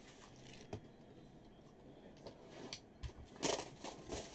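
Hands handling a cardboard trading-card box and its plastic wrapping: faint rustling and light taps, with a knock about three seconds in and a louder rustle just after it.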